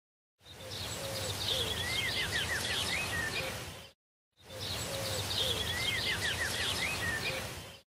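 Birds singing over a low outdoor hiss, with short chirps and quick rising and falling whistled phrases and a few lower calls. The same stretch of about three and a half seconds is heard twice, with a half-second of dead silence before each.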